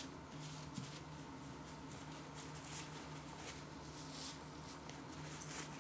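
Faint chewing and mouth sounds of a man eating a turkey and ham hock sandwich, with soft scattered rustles as a paper napkin is wiped across his mouth, over a steady low electrical hum.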